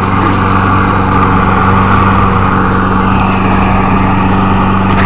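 Self-propelled lawn mower's small engine running steadily at an even speed, a constant hum with a rushing noise over it.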